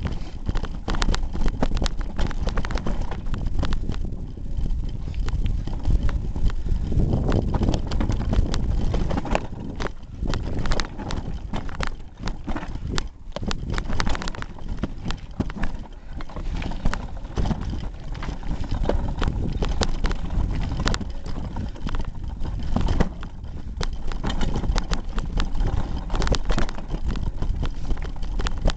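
Hardtail mountain bike clattering down a rocky trail: rapid, irregular knocks and rattles of the bike and its duct-taped handlebar camera jolting over rocks, over a steady low rumble of tyres and wind.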